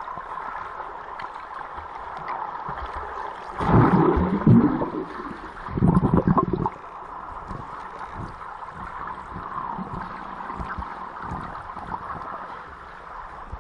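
Muffled underwater pool sound heard through a waterproof compact camera held under water: a steady hiss, with two loud spells of bubbling and churning water from swimmers about four and six seconds in.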